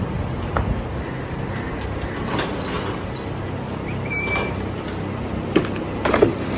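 Steel cattle crush clanking and rattling as its headgate is released and a cow walks out, several sharp metal clanks with the loudest near the end, over a steady low rumble.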